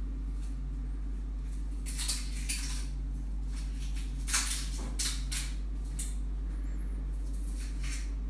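Kitchenware clinking and knocking a few times, the sharpest about two and about four seconds in, over a steady low hum.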